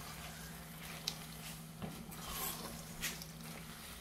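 A red spatula stirring macaroni through cheese sauce in a frying pan: faint stirring with a few light clicks against the pan, over a faint steady hum.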